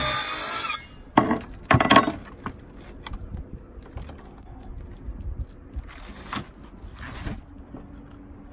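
A song ends under a second in, followed by two loud sharp knocks with clatter about a second apart, then a few short rasping strokes near the end.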